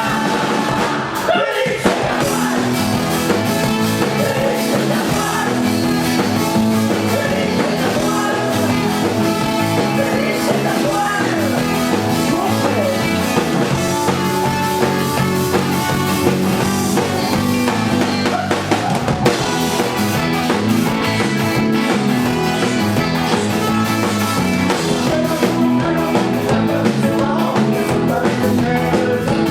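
Ska-punk band playing live: drum kit, electric guitars and a sung vocal, loud and steady.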